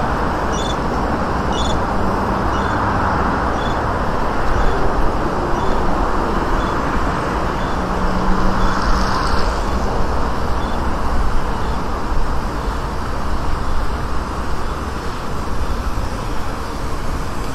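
Steady city background noise, mostly road traffic. In the first few seconds there are faint, regular footsteps on stone paving, about two a second.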